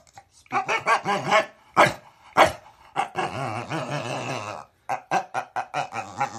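A dog vocalizing in a string of drawn-out, wavering whines and grumbles, with short breaks between them.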